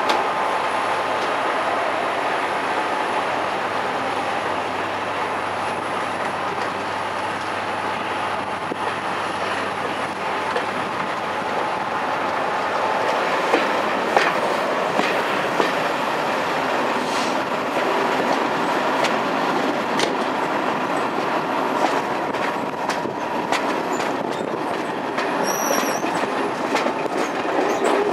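Locomotive-hauled passenger train running on the rails: a steady rail rumble, with sharp wheel clicks over rail joints from about halfway through.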